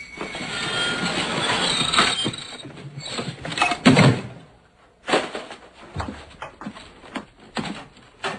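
Folding wooden attic ladder and hatch being pushed up, with a long creaking, sliding noise, then a heavy bang as the hatch shuts just before four seconds in. After that comes a string of separate knocks and bumps.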